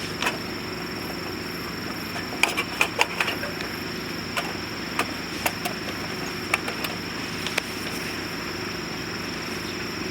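Wood burning in a VIRE rocket stove, crackling with sharp irregular pops over a steady hiss. The pops come in a quick cluster a couple of seconds in, then scattered.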